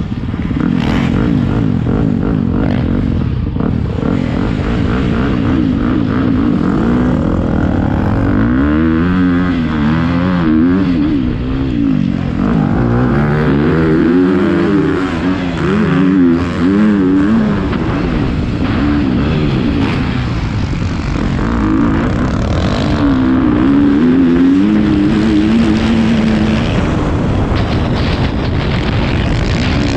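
Motocross bike engine, close up, running steadily at first, then from about eight seconds in revving up and down again and again as it is ridden around a dirt track.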